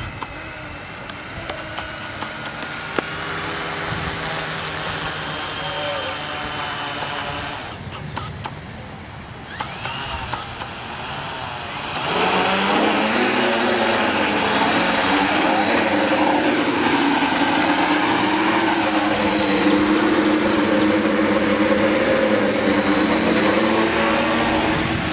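Electric motors and propellers of a homemade quadcopter boat whirring, quieter at first while it drives on the water. From about halfway they get clearly louder with a steady hum of several tones as the craft flies, with a short break before the change.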